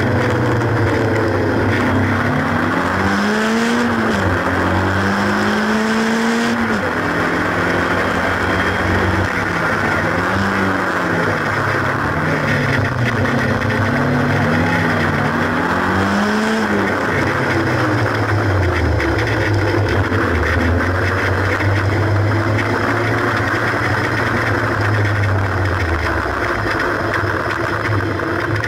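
The 1800 cc four-cylinder engine of a Haynes Roadster kit car, heard from the open cockpit, revving up and easing off again and again as it drives the twisting hill-climb road, over a steady rushing noise. After about seventeen seconds the note settles lower and steadier, and near the end it drops toward idle as the car rolls slowly.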